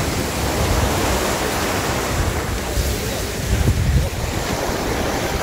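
Sea surf washing and breaking on the shore, with wind buffeting the microphone in low rumbling gusts, strongest about three and a half seconds in.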